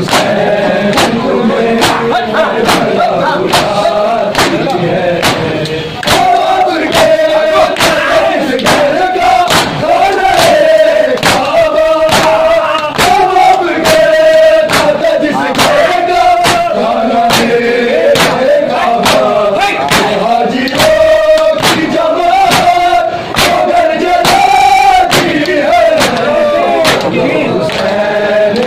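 A crowd of men chanting a Muharram lament in unison while doing matam, slapping their chests with open hands. The slaps land together in a steady beat under the chant.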